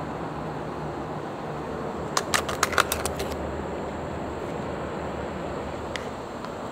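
Plastic takeaway-box lids snapping and clicking as they are pried open, a quick run of sharp clicks about two seconds in, with one more click near the end, over a steady low background rumble.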